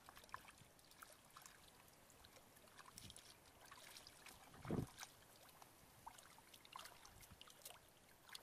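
Faint small splashes and trickles of shallow water stirred by bare feet wading and hands feeling along the muddy bottom, with one brief dull thump near the middle.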